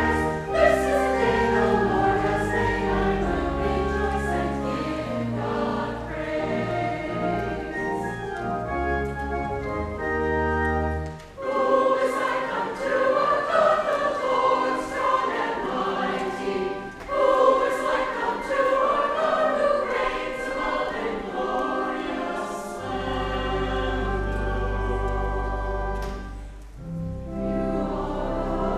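Church choir singing a hymn with organ accompaniment. The organ's deep sustained bass notes drop out a little before the middle and come back near the end.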